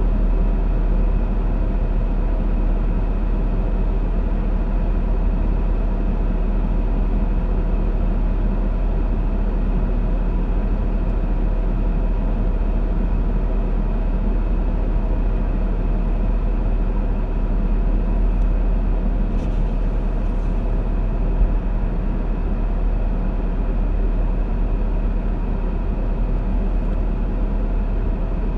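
Steady hum and low rumble of a car's running engine, heard from inside the cabin, with one brief click about two-thirds of the way through.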